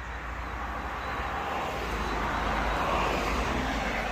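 A vehicle passing by, a rushing noise that swells to its loudest about three seconds in and then fades.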